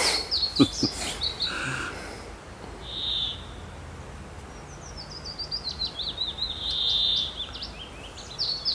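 Songbirds singing: high chirps and short whistles, with a run of quick notes falling in pitch in the second half. A couple of light knocks sound about half a second in.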